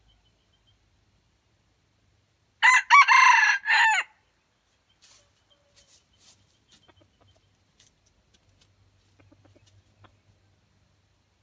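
Red junglefowl rooster giving one short crow, about a second and a half long, a few seconds in. Faint scattered ticks follow.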